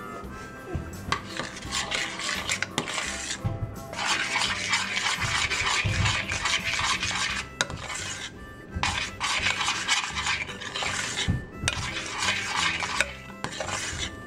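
A metal spoon stirring and scraping melted chocolate around a stainless steel saucepan. The scraping comes in several stretches with short pauses between them, the longest a few seconds in.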